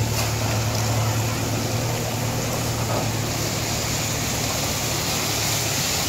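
Diesel engine of the tractor hauling the trolley running steadily with a constant low hum, an even rushing noise over it.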